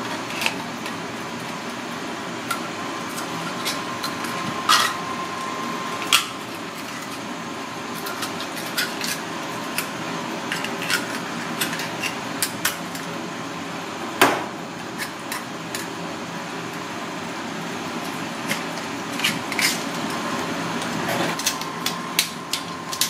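Tap water running steadily into a stainless steel sink while a clam knife pries open red clams. Scattered sharp clicks and scrapes of the blade and shells knock against shell and steel, the loudest about fourteen seconds in.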